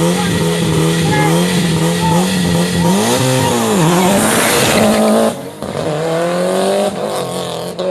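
Race car engines at full throttle on a hill climb. One engine holds high revs, dips in pitch about three seconds in and climbs back. After an abrupt cut about five seconds in, another engine accelerates with rising pitch.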